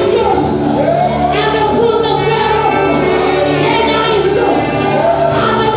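Gospel music with singing voices over sustained bass notes.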